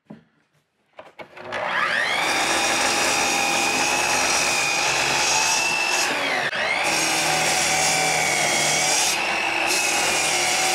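Sliding miter saw motor spinning up about a second and a half in, then running with a steady high whine while crosscutting boards to length, with a brief dip about six and a half seconds in.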